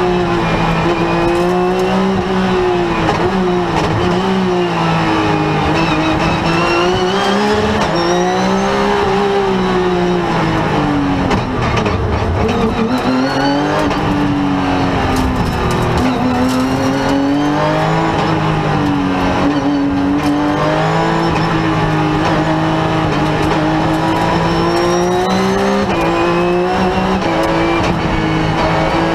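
Rally car engine heard from inside the cockpit at full stage pace, the revs climbing and dropping again and again as it works through the gears. About twelve seconds in the revs fall away low, then build back up.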